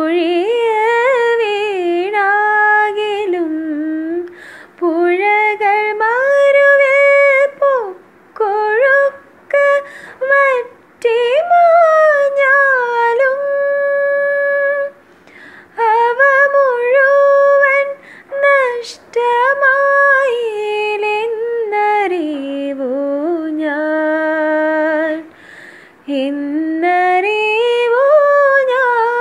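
A woman singing solo without accompaniment, in phrases of sliding, ornamented notes with a few long held notes and short breaks between phrases. Sung close into a wired earphone microphone in a small room.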